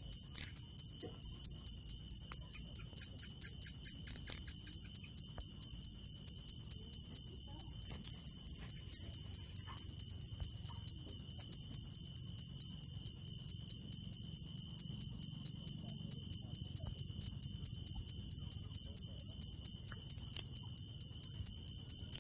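Cricket chirping loud and close: a steady, even train of high-pitched chirps, about four a second, with no let-up.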